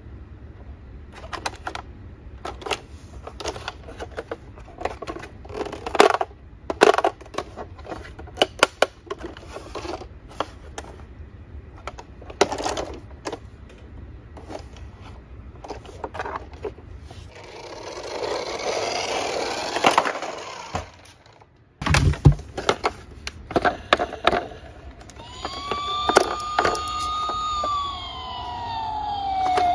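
Hard plastic toy vehicles clicking and knocking as they are handled in a cardboard box, with a stretch of scraping noise and a single thud. Near the end, a battery-powered toy police car's electronic siren starts up, wailing up and down in pitch.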